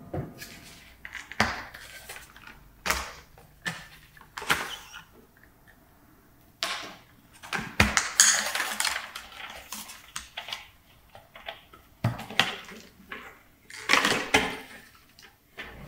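Sharp hard-plastic clicks and clacks as a Dyson upright vacuum's orange cyclone assembly and clear dust bin are handled and pulled apart, with a short rubbing scrape about eight seconds in.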